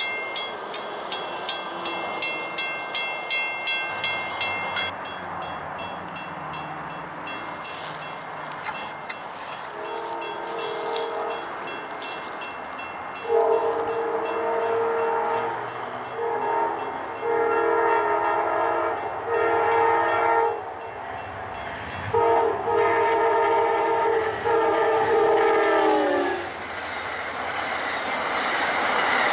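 Railroad grade-crossing bell dinging rapidly and evenly for the first few seconds. Later a passenger train's multi-tone horn sounds a series of long blasts, the last one dropping in pitch as the train passes. The train then rushes by with a rising rumble of wheels on rail.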